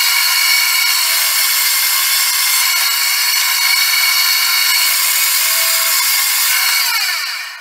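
Drill press running a Forstner bit that bores a half-inch-deep hinge cup hole into a painted wooden cabinet door, with a loud steady whine and cutting noise. The sound dies away near the end.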